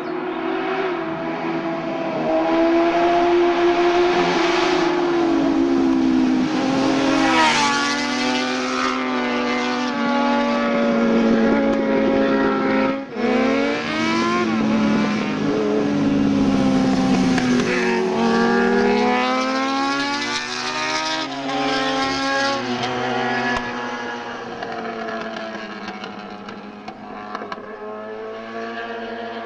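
Sport motorcycle engines passing at speed, revving hard and changing up through the gears, the pitch climbing and dropping again and again. There is a brief sharp break about 13 seconds in, and the engines grow quieter over the last few seconds.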